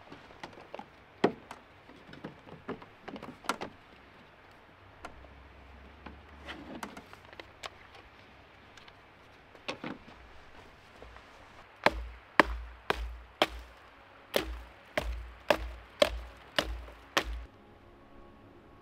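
Scattered clicks and clatters of gear being handled on a metal mounting panel. Then about ten sharp, evenly spaced knocks, each with a dull thud, about two a second, which are the loudest sounds here.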